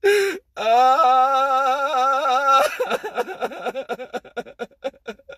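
A man weeping aloud: a short cry, then a long, wavering wail for about two seconds that breaks into choppy sobbing.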